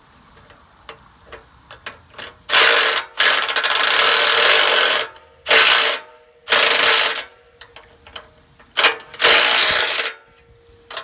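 Cordless impact driver hammering as it runs a nut and bolt tight, in about six loud bursts starting a couple of seconds in: the longest lasts about two seconds, the rest are shorter. Faint clicks and taps come between the bursts.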